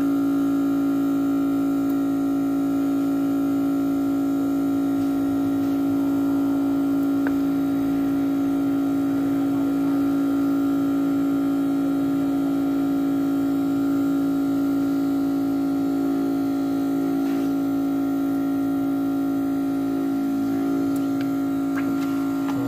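Steady machine hum with a strong low drone and a stack of overtones, from the vacuum suction of an LCD glass separator machine holding the phone panel.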